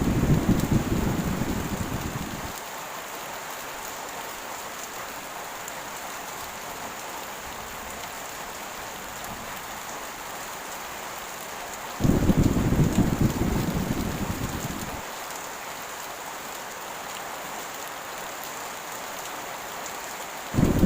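Heavy, steady rain with thunder. A low rumble fades out in the first couple of seconds, another starts suddenly about twelve seconds in and dies away over about three seconds, and a third begins near the end.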